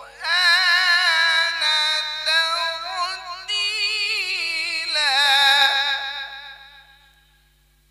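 A man reciting the Quran in the melodic tilawat style, holding long ornamented notes whose pitch wavers and turns. The phrase fades out about a second before the end.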